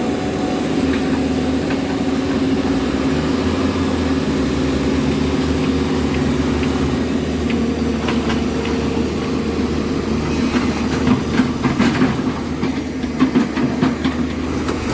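Heavy diesel engines of an excavator and a stuck tipper truck running steadily under load during the pull. A run of sharp knocks and clanks comes in the last few seconds.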